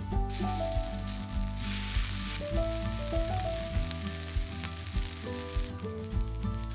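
Bread and wiener sausage pieces on skewers sizzling in butter on a hot griddle plate as they are turned to toast their sides; the sizzle starts just after the start and cuts off about a second before the end, over light background music.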